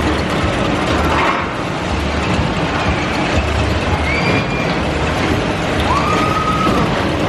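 Amusement ride machinery running with a steady loud noise and a low pulsing rumble. A whine rises and holds briefly twice, the clearest about 6 seconds in.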